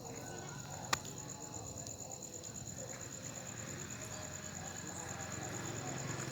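Cricket chirping in a rapid, even, high-pitched pulse, about six or seven pulses a second, with a single sharp click about a second in.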